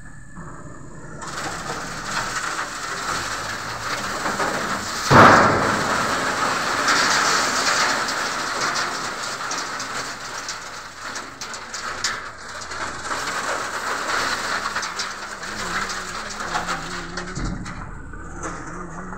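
Steady heavy rain, with a sudden loud crash about five seconds in that dies away over a few seconds.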